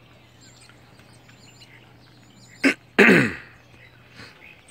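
A man's short, throaty vocal noise about three seconds in: a quick sharp burst, then a loud groan-like sound that falls steeply in pitch. Faint bird chirps and a low steady hum sit underneath.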